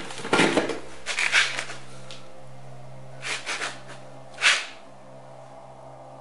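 Film soundtrack: a low steady drone under a few sharp swishing hits, the loudest about four and a half seconds in.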